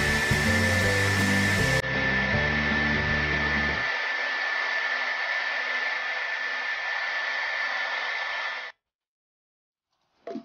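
A small electric blower motor runs steadily, pushing air with an even high whine, and cuts off suddenly near the end.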